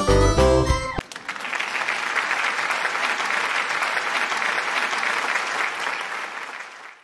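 A musical jingle cuts off about a second in, and a theatre audience's applause follows, holding steady and then fading out near the end.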